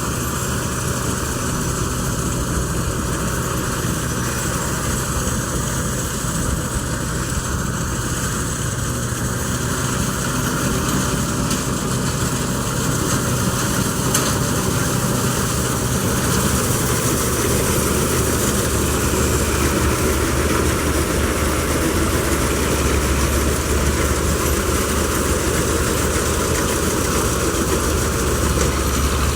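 Wheat-harvesting machinery running steadily: a heavy engine drone under a dense mechanical noise, growing slightly louder about ten seconds in.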